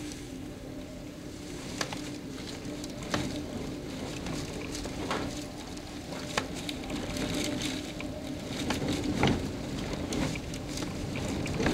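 Les suêtes southeast windstorm, gusting at hurricane force, heard from inside a house: a steady rushing hiss with scattered sharp ticks and a stronger gust about nine seconds in. A low steady hum runs underneath.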